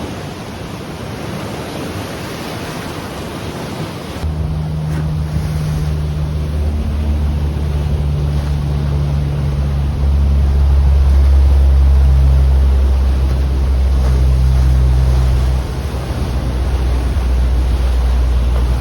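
Surf washing on the shore. About four seconds in, a low, steady engine drone comes in with wind rumbling on the microphone and holds on, its pitch shifting a few times.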